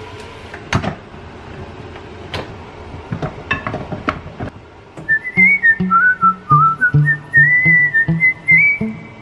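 Kitchen handling sounds: a few clicks and knocks as a stainless steel mixing bowl is set down and a rice cooker is opened and rice scooped. From about five seconds in, background music takes over: a whistled melody over a regular plucked bass.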